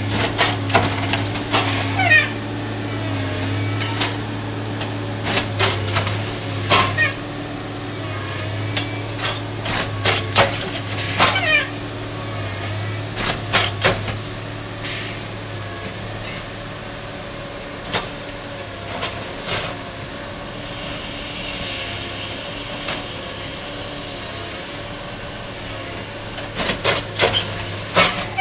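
Diesel engines of railway track-maintenance machines running steadily, with repeated sharp metal clanks and knocks from their workheads during tie replacement, and a short hiss of air about halfway through.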